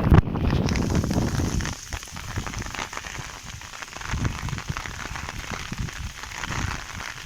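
Heavy rain falling steadily, an even hiss with scattered drop taps. A louder low rumble underlies it for about the first two seconds, then drops away.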